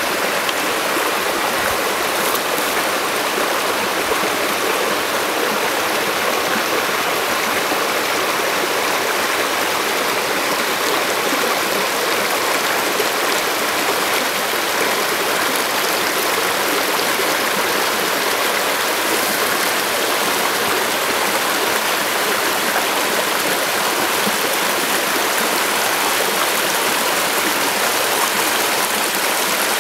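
Creek water rushing steadily, an even, unbroken hiss of flowing water.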